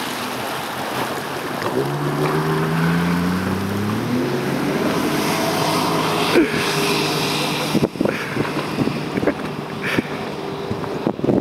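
Motorized watercraft engine running, its pitch rising as it speeds up about two seconds in, with wind on the microphone and water rushing.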